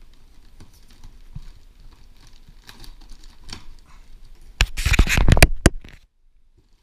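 Inflated air-column plastic packaging rustling and crinkling as hands press and shift it inside a cardboard box, with light scratchy rustles at first and then a loud burst of crinkling about five seconds in that cuts off suddenly.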